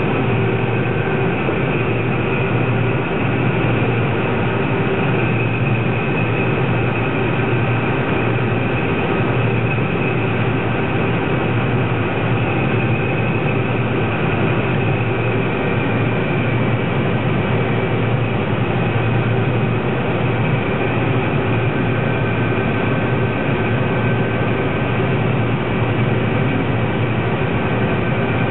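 John Deere 9750 STS combine harvester running steadily while harvesting wheat: a constant, loud drone of its diesel engine and threshing machinery, with several steady whining tones over it.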